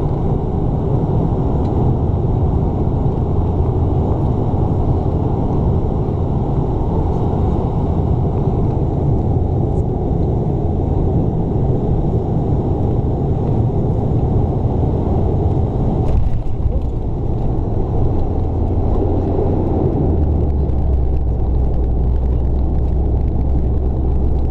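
Cabin noise of a Bombardier Dash 8 Q400's PW150A turboprops during landing: a loud, steady low propeller drone with rushing air, a brief jolt about two-thirds of the way through, and the drone settling to a lower pitch in the last few seconds as the aircraft rolls out on the runway.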